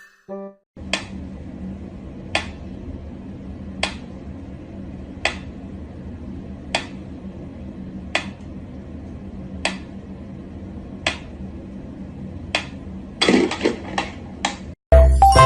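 A sharp click or tap repeated evenly about every one and a half seconds, over a steady low hum, with a brief patch of rattling near the end.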